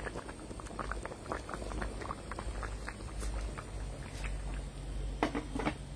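Pot of chicken cook-up rice bubbling on the boil, with many small, irregular pops.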